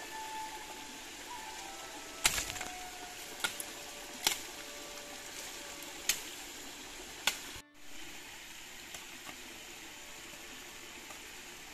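Billhook blade chopping at a green bamboo pole, stripping off its thorns and side shoots: five sharp strokes at irregular intervals of about a second, over the steady hiss of a stream.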